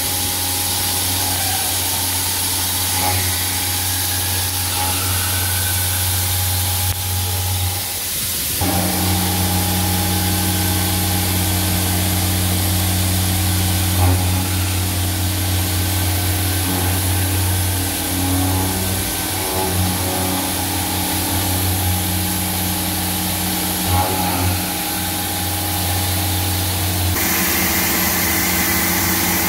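CNC machining center face-milling a metal plate with a 50 mm Tetrafeed high-feed cutter carrying five inserts, giving a steady low drone. The plate is full of holes, so the cut is interrupted. The tone shifts about eight seconds in and again near the end.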